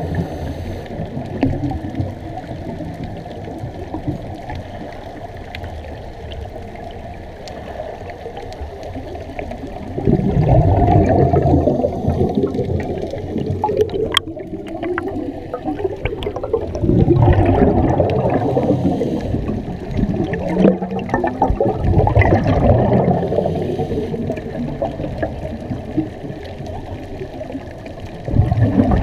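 Water sloshing and gurgling, with louder surges every few seconds.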